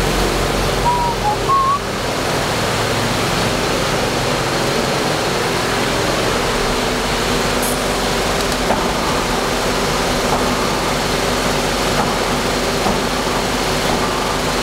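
Workshop air compressor running steadily, an even hum and hiss. A few brief faint squeaks come about a second in.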